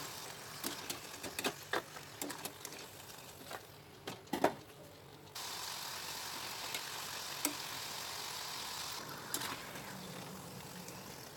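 Corn tortilla chips deep-frying in hot oil, a steady sizzle, with scattered clicks and taps of a wire spider skimmer against the pan and the chips as they are stirred and lifted out. The sizzle is briefly quieter about four seconds in, around the loudest tap.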